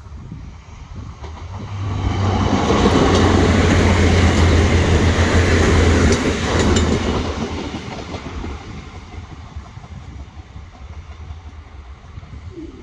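A diesel train passing over the level crossing close by. It rises quickly to a loud rumble with a low engine hum and a few wheel clacks, then fades away over a couple of seconds.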